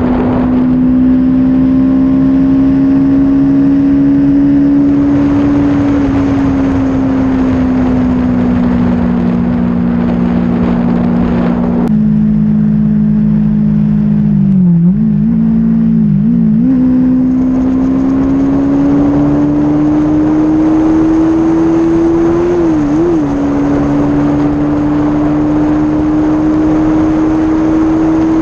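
Stock Kawasaki Z400 parallel-twin engine running at high revs under way, its pitch holding, dipping slightly about twelve seconds in, wavering twice soon after, then slowly climbing. Heavy wind noise on the microphone runs under it.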